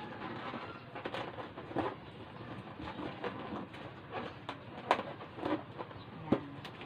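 Inflated latex balloons squeaking and rubbing against each other as they are twisted together by hand, in short irregular squeaks and taps.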